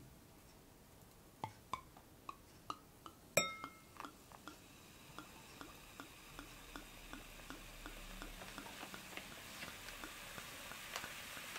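Light clicks and one ringing glass clink, then champagne being poured into a coupe glass: a fine fizzing hiss of bubbles with tiny crackles that grows louder as the glass fills.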